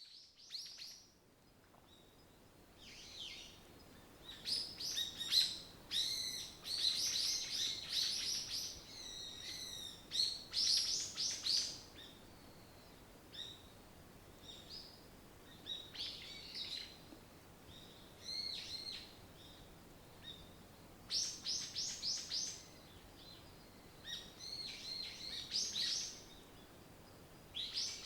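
Forest birdsong: songbirds singing in quick bursts of chirps and trills with short gaps between, the busiest stretch in the first half, over a faint steady background hiss.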